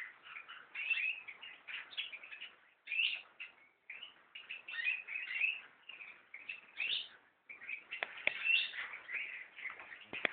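Caged canary singing, a run of quick twittering, warbling phrases with short pauses between them. There are a couple of faint knocks near the end.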